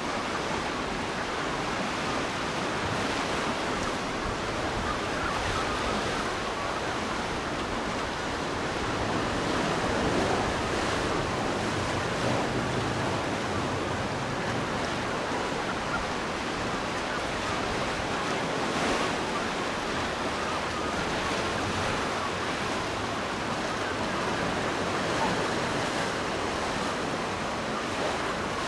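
Ocean surf washing steadily, an even rushing noise that swells slightly now and then.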